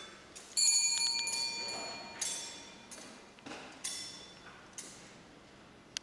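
Altar bell rung about five times, each strike ringing on and fading; the first strike is the loudest.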